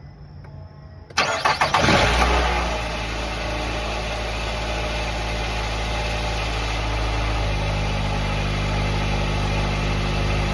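A 2015 Nissan Rogue's 2.5-litre four-cylinder engine is started about a second in: a brief crank, it catches, then it settles into a steady idle.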